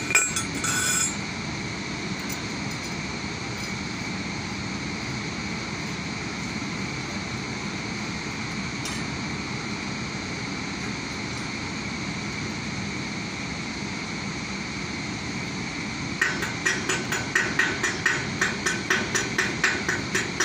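Steady industrial hum, then from about three-quarters of the way in a hand tool striking the steel crane rail repeatedly, sharp ringing metal blows about two to three a second.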